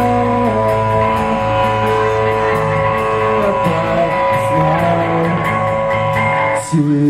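Live band music with guitar to the fore: long held notes that shift pitch in steps. Near the end it changes abruptly to shorter, choppier notes.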